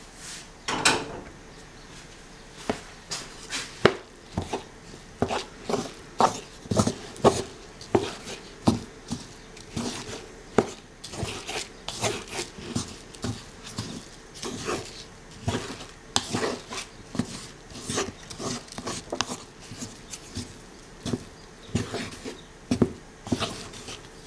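Hands working couscous grains in a wooden bowl: a run of short, irregular rustling scrapes, one or two a second, as fingers rake the grains and rub against the wood to break up clumps.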